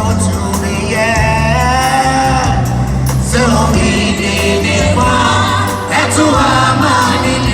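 Gospel music: a choir singing with wavering held notes over steady instrumental bass.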